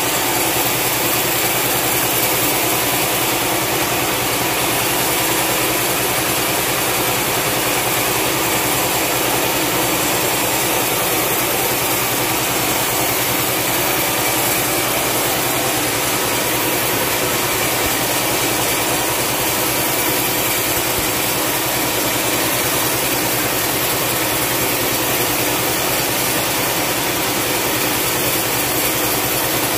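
Log-carriage sawmill running steadily, its saw cutting along a long, dry hardwood log.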